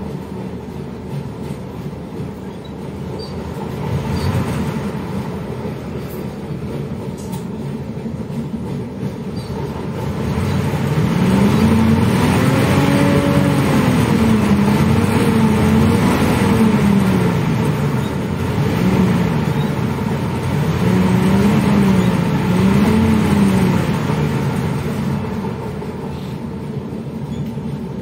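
Cabin sound of a LiAZ-677M city bus, its V8 petrol engine running. In the middle the engine note rises and falls in several swells, some slow and some quick, then settles back to a steady run near the end.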